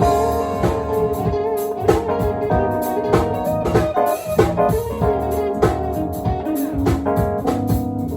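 Band playing an instrumental jazz-funk tune: keyboard and guitar lines over a drum kit.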